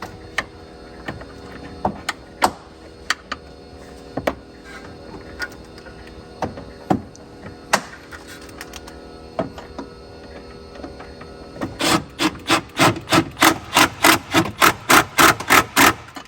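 Scattered light clicks and taps while a T25 screw is fitted into a car's plastic fog light surround, then, near the end, a fast even run of ratchet clicks, about four to five a second, as the screw is driven in by hand.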